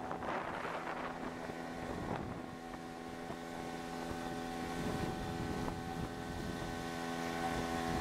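Outboard motor driving an inflatable boat at speed, its engine note running steadily. Wind buffets the microphone, most roughly in the first couple of seconds.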